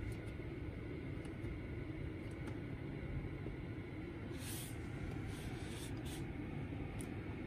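Steady low rumble of background noise inside a car cabin, with a few faint ticks and brief hisses.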